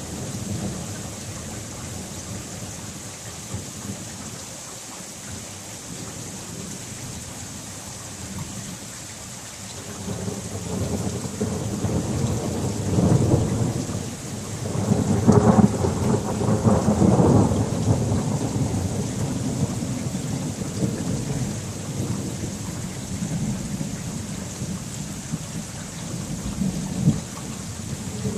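Thunderstorm: steady rain with a long roll of thunder that builds about a third of the way in, is loudest around the middle and rumbles away slowly.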